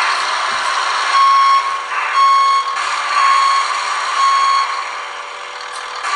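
Reversing beeper on an RC wheel loader: four steady, high beeps about a second apart, over a steady mechanical hiss.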